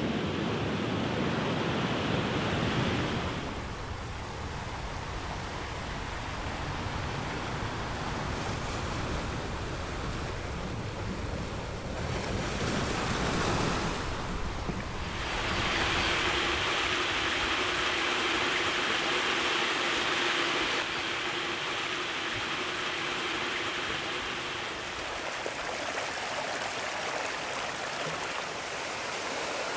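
Sea surf: waves washing and breaking over rocks, giving way near the end to a shallow stream running over stones. The rushing water noise shifts abruptly several times.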